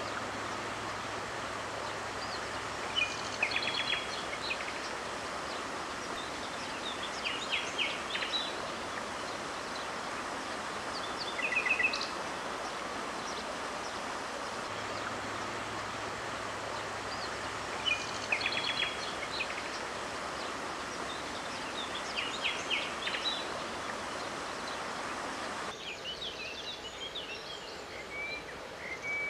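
Outdoor ambience: a steady rushing hiss with small birds chirping in short clusters every few seconds, the same chirps recurring about every fifteen seconds. About 26 seconds in, the hiss drops away and different bird calls carry on.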